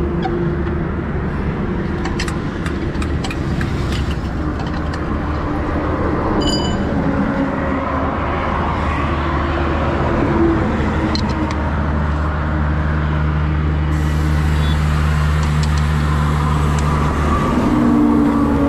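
Highway traffic running past, with heavy vehicles' engines droning. A steady engine drone holds for several seconds in the second half, and a few light clicks sound over the traffic.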